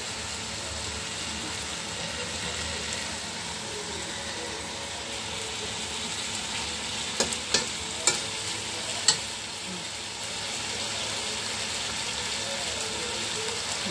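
Shrimp, pineapple, green chillies and carrot sizzling in a wok as they are stir-fried. A few sharp clicks of the tongs against the wok come between about seven and nine seconds in.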